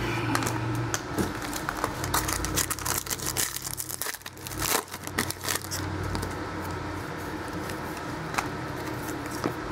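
A foil trading-card pack wrapper being crinkled and torn open by hand: a dense run of crackles from about a second and a half in until about five and a half seconds, then quieter handling of the cards with a few light clicks.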